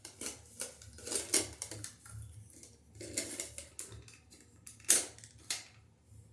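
Irregular clicks, scrapes and light clatter of small hard parts being handled, loudest about a second in and again just before five seconds.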